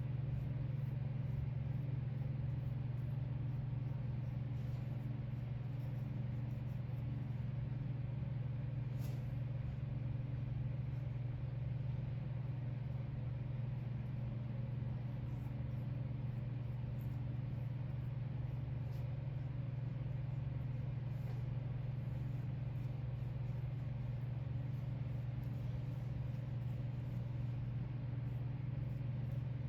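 A steady low mechanical hum, even and unchanging, with faint light ticks over it.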